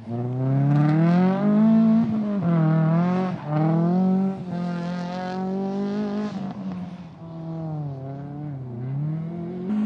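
Drifting BMW E46 race car's engine revving up and down in repeated swells, its pitch rising and falling several times, with some tyre squeal as the car slides sideways.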